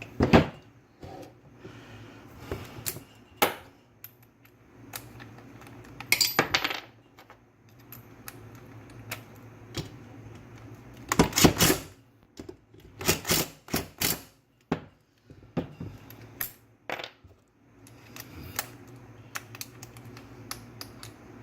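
Metal parts of a Subaru SVX power steering pump being handled and fitted back together: irregular sharp clinks, knocks and short rattles of metal on metal, with a faint steady hum underneath.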